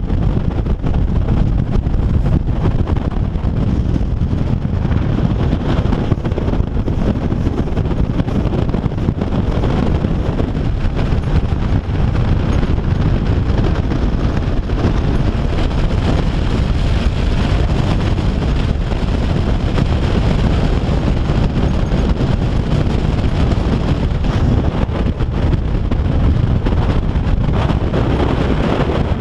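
Loud, steady wind buffeting the microphone: a constant low rumbling rush with no break.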